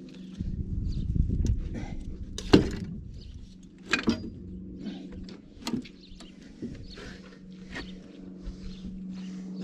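Metal clanks and knocks of hand tools and engine parts during an excavator engine teardown, the loudest about two and a half seconds in and others around four, five and a half and eight seconds in. A steady low hum runs underneath.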